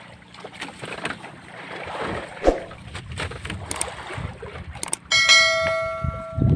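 Wind and sea noise aboard a small boat, with a few sharp knocks. About five seconds in, a bright bell chime starts abruptly and rings out for about a second and a half: the notification-bell sound effect of a subscribe-button animation.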